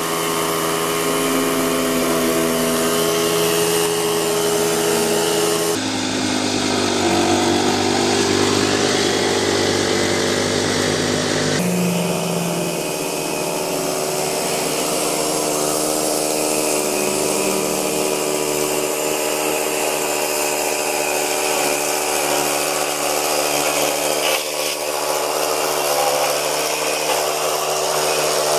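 Small engine of a remote-controlled lawn mower running steadily under load while it mows tall grass. The engine tone shifts abruptly twice, about six and twelve seconds in.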